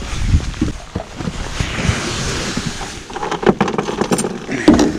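Wind and water noise around a small fishing boat, rising to a hiss in the middle, then a quick run of knocks and clicks near the end from handling a freshly caught walleye.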